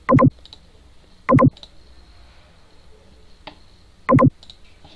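Computer mouse clicking: four loud single clicks, at the start, about a second in, about four seconds in and again at the end.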